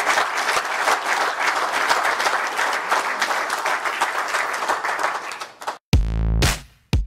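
Audience applauding, dying away about five and a half seconds in. Near the end, electronic music with a heavy bass beat starts.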